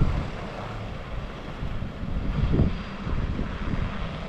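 Sprinter box van driving slowly away over packed snow, its engine and tyres heard at a distance, with wind rumbling irregularly on the microphone.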